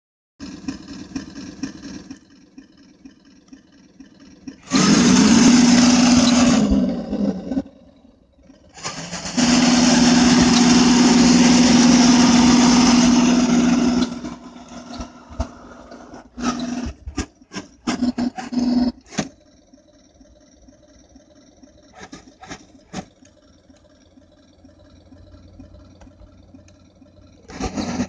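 Remote-control toy tank running in two loud spells, the first about five seconds in and a longer one from about nine to fourteen seconds: a steady hum with a hiss over it. Short, sharp bursts follow, and it rises again near the end.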